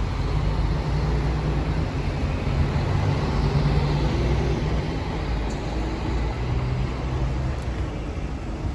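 Street traffic: an articulated city bus and cars driving past, with a steady engine hum and tyre noise.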